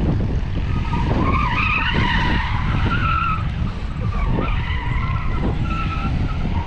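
A car sliding sideways, its tyres squealing in wavering screeches over a low engine rumble. The squeal is loudest from about one to three and a half seconds in, and comes again briefly later.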